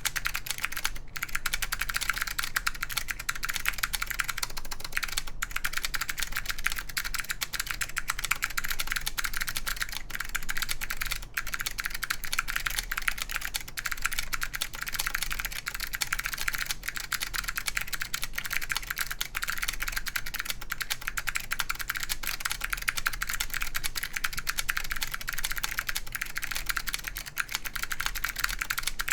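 Fast, continuous typing on a mechanical keyboard with SKCM Blue clicky Alps switches, wax-boiled, in an aluminium plate under Apple Extended Keyboard II keycaps: a dense stream of sharp, bright clicks.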